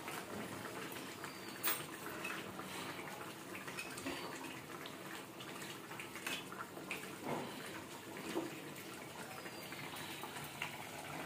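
Fish curry simmering in a steel kadai, a steady bubbling hiss, with a few light clinks of a metal spatula against the pan as fried lentil dumplings are stirred in.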